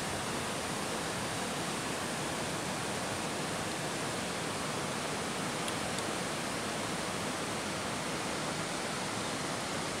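Steady rushing water noise, like a mountain river or stream, even throughout with no distinct events.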